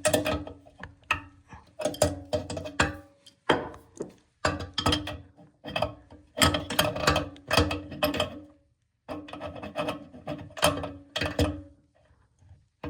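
Tool clicking and knocking against a toilet tank bolt as it is worked loose, in quick irregular bursts with a short ring after many of the knocks.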